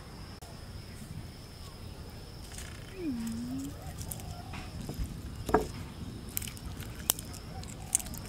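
Crisp deep-fried bats handled with the fingers, giving scattered light clicks and crackles, the sharpest about five and a half seconds in. A short low voiced hum comes about three seconds in, and a faint steady high tone sounds behind.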